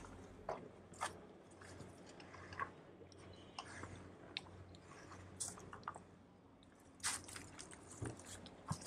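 Footsteps crunching dry leaf litter and twigs on a narrow concrete hillside path: scattered small crunches and clicks, with a cluster of louder ones about seven seconds in.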